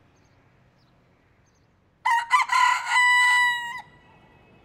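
A broiler-breed rooster crowing once, about two seconds in: a choppy opening, then one long held note that stops abruptly.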